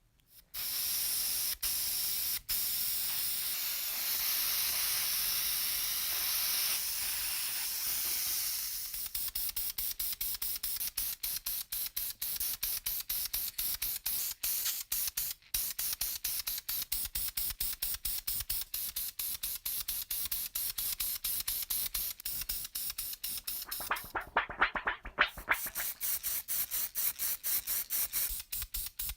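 Spray paint hissing onto a model bus body: one continuous spray for about eight seconds, then many short quick bursts.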